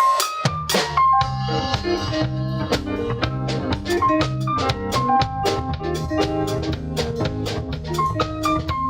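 Instrumental music with a drum kit keeping a steady beat under a bass line and a held, stepping melody.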